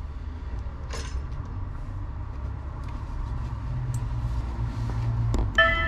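Low, steady outdoor rumble of street noise with a few faint clicks. Near the end the first note of a video doorbell's electronic chime rings out.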